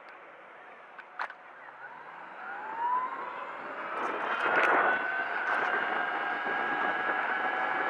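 Razor MX500 electric mini dirt bike's motor and chain drive whining. The whine rises in pitch as the bike speeds up from about two and a half seconds in, then holds a steady high pitch at cruising speed. There is a click about a second in and a brief noisy burst around four and a half seconds.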